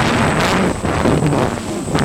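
Gusty wind buffeting the microphone, a noisy rush that swells and dips in strength.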